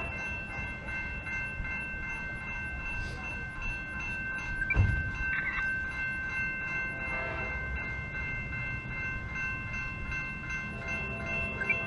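Distant horn of an approaching train, held as a steady chord of several unbroken tones, with a single low bump about five seconds in.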